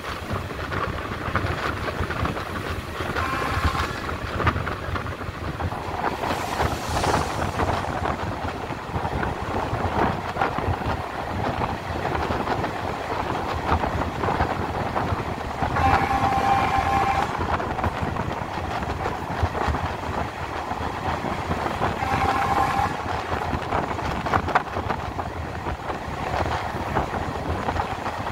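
Passenger train running along the line, heard from on board: steady rolling noise with the clatter of the wheels over the track. Three times a short high tone rises over it, each about a second long.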